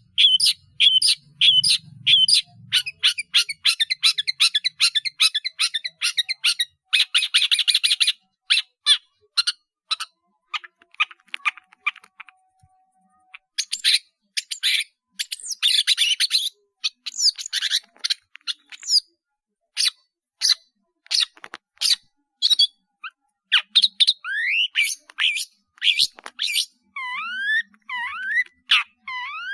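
Long-tailed shrike (cendet) singing a long, varied song full of mimicked phrases from other birds: quick strings of sharp, high chirps, a short pause midway, then slurred whistles near the end.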